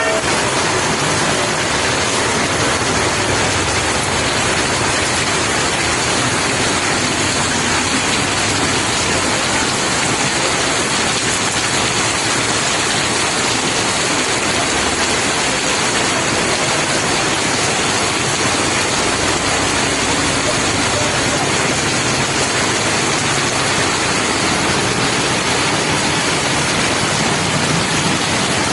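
Heavy rain pouring down on a street, a steady, even rush of falling water with no letup.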